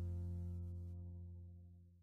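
Background music on a held chord, fading out steadily and stopping at the very end.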